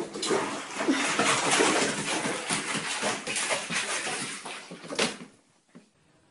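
Bathwater splashing as a cat thrashes in a filled bathtub and scrambles out: a dense run of splashes that starts abruptly and stops suddenly about five seconds in.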